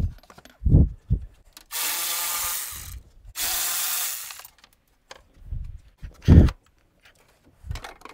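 Plastic radiator fan shroud and fan being worked loose and lifted in an engine bay: a few knocks and bumps, two rasping scrapes of about a second each near the middle, then more knocks with one loud bump.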